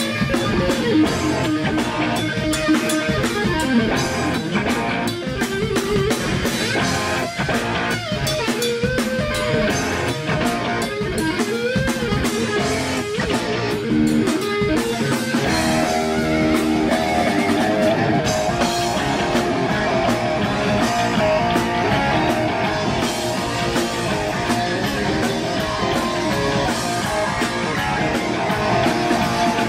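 Live rock band playing a song: distorted electric guitar over a drum kit.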